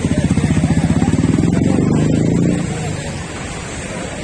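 A motorcycle engine running close by with a fast, even pulsing beat, fading away about two and a half seconds in and leaving a steady background rush.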